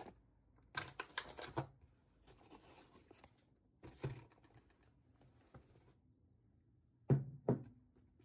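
Groceries being handled in a cloth tote bag: crinkling and rustling of plastic packaging in short bursts, then two sharp knocks about half a second apart near the end.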